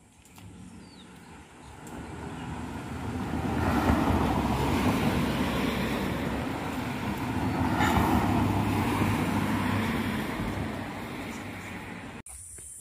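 A motor vehicle passing on the road close by: engine and tyre noise swells, stays loud for several seconds, then fades away.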